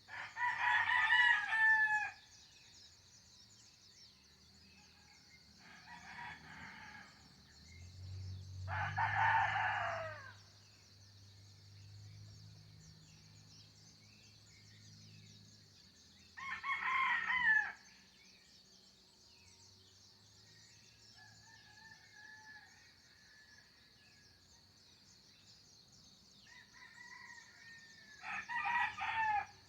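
Roosters crowing, five crows spread out about every few seconds, one of them fainter than the rest.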